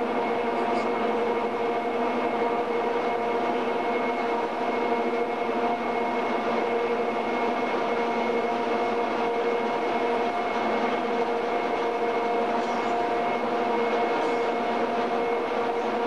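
Steady machinery hum with several held tones that stay unchanged throughout, with no knocks or starts.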